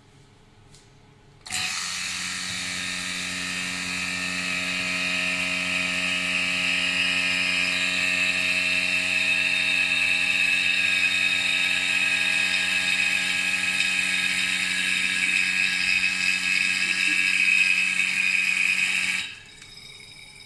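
Electric vacuum pump running with a steady hum and hiss, pumping the air out of a bell jar. It switches on about a second and a half in and cuts off near the end.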